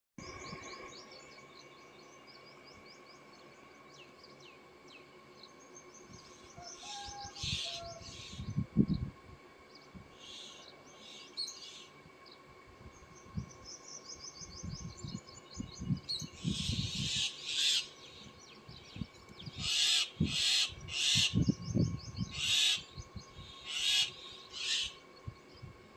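Birds chirping in quick repeated trills over a steady faint high tone, with short bursts of rustling noise and a few low thumps from about seven seconds in.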